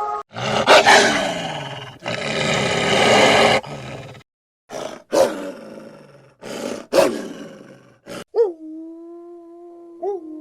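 Loud, harsh animal calls: two long rasping calls, then four or five shorter ones in quick succession, followed near the end by a steady, evenly pitched call.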